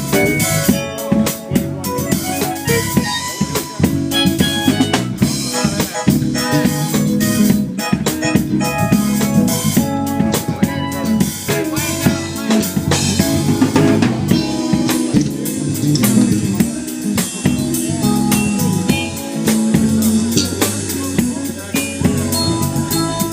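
A band playing live, a drum kit with snare and bass drum beating steadily under held pitched instrument notes.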